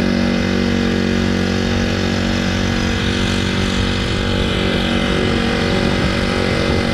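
Honda GX35 35cc air-cooled four-stroke engine running steadily at speed, heard from right beside it as it drives a kayak's drop-in propulsion leg.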